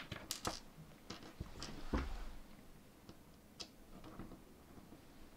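Small 3D-printed PLA plastic figure parts clicking and tapping as they are handled and pressed together: a scatter of light clicks, the loudest about two seconds in with a soft knock.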